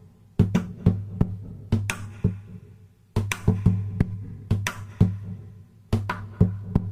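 Background music with a drum beat and a heavy bass line, dropping out briefly about two and a half seconds in before the beat comes back.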